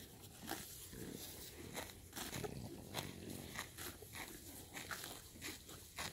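Horse grazing at close range, tearing and chewing grass in a run of irregular crunches and clicks.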